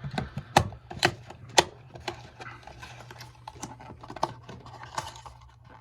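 Metal trick bolt puzzle clicking and tapping as it is handled and turned, with three sharper clicks in the first two seconds, then lighter scattered taps.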